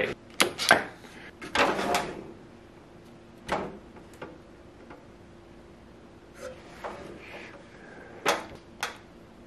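A wooden board being handled and slid along a miter saw's fence: a few sharp knocks and short scrapes, spread out with quiet stretches between them.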